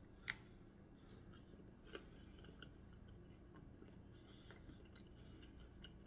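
A bite into a rolled chicken flauta with a sharp crack of the tortilla shell, then quiet chewing with faint crunches and another small crack about two seconds in.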